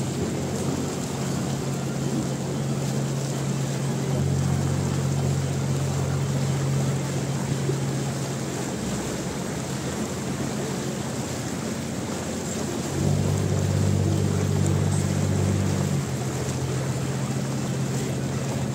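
Canal tour boat's motor running steadily, a low hum over water and wind noise; the hum shifts up and grows louder about 13 seconds in, then drops back about three seconds later.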